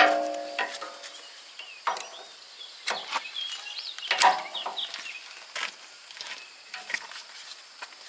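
Hydraulic hose quick-couplers being handled and pushed onto a skid steer's auxiliary ports: a sharp metallic clank that rings briefly at the start, then scattered clicks and knocks about once a second. Birds chirp faintly in the background.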